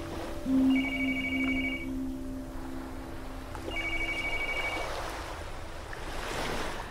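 Electronic landline telephone ring, a fast warbling trill in bursts of about a second, heard twice about three seconds apart. A steady low drone and the wash of surf sit behind it.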